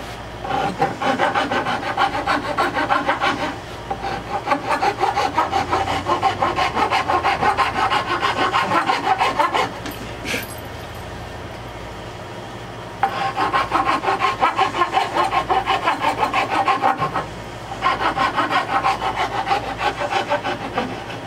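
Hand file rasping along the edge of an oak board in quick, repeated back-and-forth strokes. The strokes come in runs, broken by short pauses and one longer pause of about three seconds near the middle.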